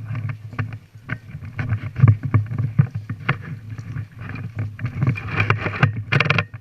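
Rustling and irregular knocks close to the microphone, with a dense low thudding, and a denser burst of noise near the end.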